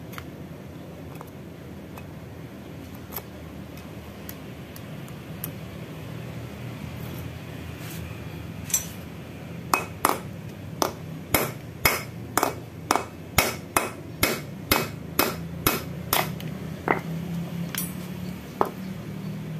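A hammer tapping on an 8 mm bolt to drive a worn, loose valve guide out of a Yamaha Mio J's aluminium cylinder head. After a few scattered clicks of tool handling, a run of about fifteen sharp metallic strikes comes about two a second from around the middle, with a few slower taps near the end.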